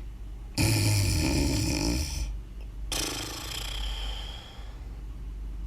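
Snoring: one buzzing snore starting about half a second in, then a long airy breath out that fades away.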